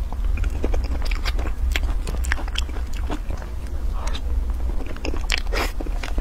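Close-miked eating of a soft mango crepe cake: chewing with many sharp, irregular wet mouth clicks, over a steady low hum.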